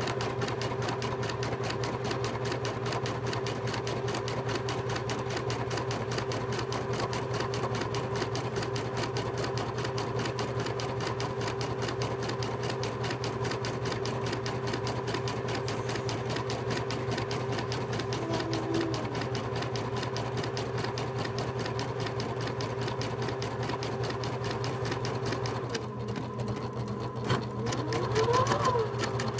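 Computerized embroidery machine stitching a satin-stitch lettering design, with rapid, even needle strokes over a steady motor hum. Near the end the sound changes and a short rising whine is heard.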